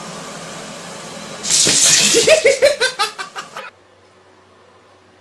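A steady background hiss, then a person laughing hard in quick repeated bursts for about two seconds; it cuts off suddenly to faint room tone.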